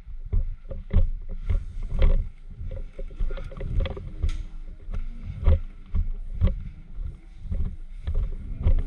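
Thumps and rustling on a body-worn microphone, about two bumps a second, as of the wearer moving on foot with gear shifting, with a few short sharp clicks among them.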